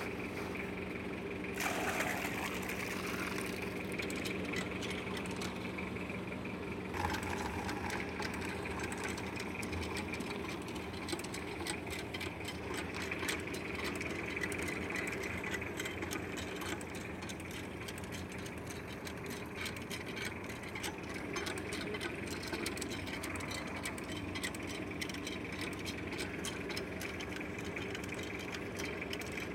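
Steady engine drone, even throughout, with a brief sharp clatter about two seconds in and again about seven seconds in.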